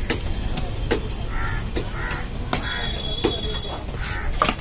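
A heavy knife chopping small fish on a wooden log block, sharp irregular chops about every half second, while crows caw over and over. A brief high steady tone sounds about three seconds in.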